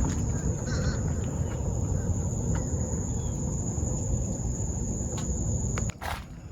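A steady, high-pitched insect trill that holds one pitch, over a low rumbling noise. Both drop off abruptly about six seconds in, and the trill carries on faintly after.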